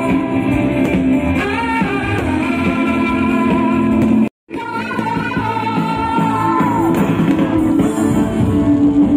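Music: a song with a singing voice over held instrumental notes, cutting out for a moment about four seconds in.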